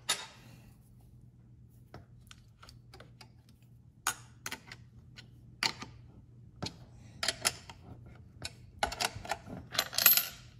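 Light metallic clicks and taps of a wrench working the nuts on a brake booster's mounting studs as they are tightened. The clicks are scattered at first and come in small clusters near the end.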